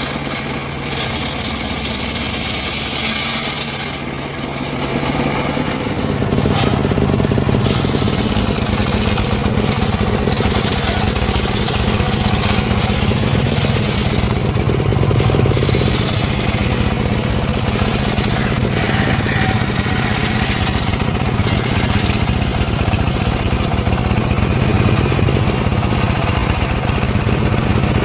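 The small engine of a wood-cutting saw running steadily. A bright hiss of blade cutting through wood sounds over it for the first few seconds. After that the engine runs louder and steadier.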